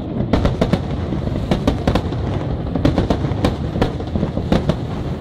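Aerial firework shells bursting: an irregular, rapid series of sharp bangs, several a second, over a steady low rumble of echoing reports.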